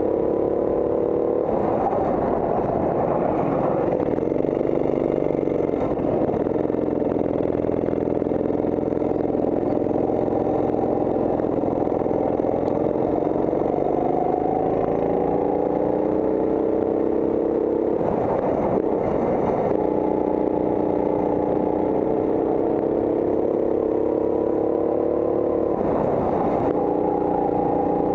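Go-kart engine running at speed, its pitch climbing slowly and steadily along the straights and dropping back briefly a few times as the kart slows for corners.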